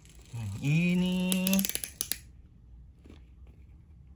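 A quick run of sharp clicks from a small plastic pull-back toy car, its spring motor ratcheting as it is drawn back along the mat, followed by a few faint ticks.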